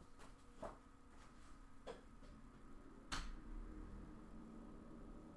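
Quiet room tone with a few faint scattered clicks, the sharpest about three seconds in.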